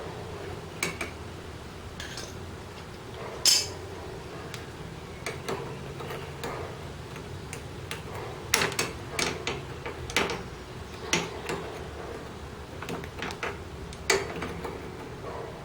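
Scattered metallic clicks and clinks of hand tools and a fuel line clamp being worked onto a mower's rubber fuel hose, over a low steady hum. A sharp click comes about three and a half seconds in, and a quick run of clicks falls between about eight and eleven seconds.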